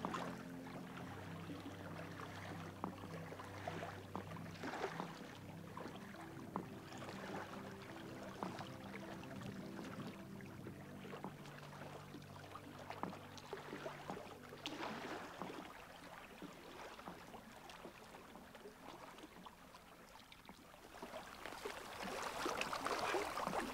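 Soft background music of long held chords that fades out about fifteen seconds in, over light water splashing and lapping that grows louder near the end.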